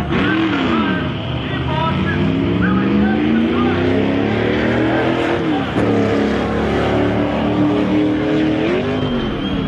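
A car engine accelerating hard at full throttle, its pitch climbing for several seconds, dropping at a gear change about six seconds in, then climbing again before falling back near the end.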